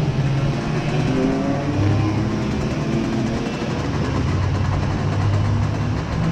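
Racing kart's Raket 120 engine running, its pitch rising and falling as the revs change.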